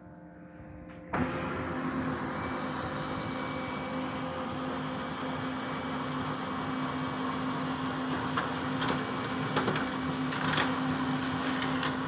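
Brother DCP-L2640DW laser printer starting up and printing a page. A steady mechanical whir with a low hum comes in suddenly about a second in, with a few clicks later on as the sheet is fed through and pushed out into the tray.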